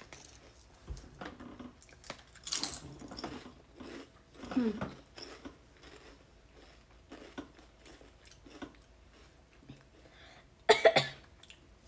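Potato chips being crunched and chewed, with soft mouth noises. A loud cough comes near the end.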